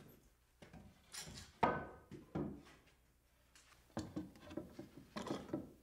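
Wooden boat timbers being handled and set against each other: a few knocks and clatters of wood on wood, the loudest about a second and a half in, then a run of lighter taps and knocks near the end.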